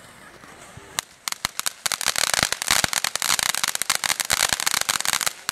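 Consumer ground fountain firework crackling: a single sharp crack about a second in, then a dense rapid run of sharp crackling pops that thins out near the end.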